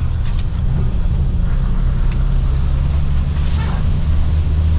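Inside a moving local bus: the engine's steady low drone with road noise.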